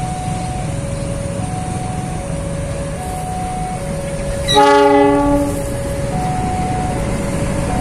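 KAI diesel locomotive approaching and passing close, its running a steady low rumble. About four and a half seconds in it gives one blast of its multi-note horn, lasting about a second. A two-note tone alternates steadily in the background.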